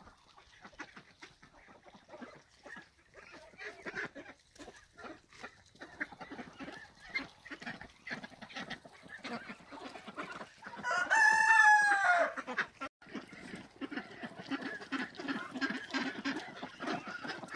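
Hens clucking and cackling, the egg song that tells a hen is laying, with one long, loud call that rises and then falls about eleven seconds in. Footsteps crunch through snow under the clucking.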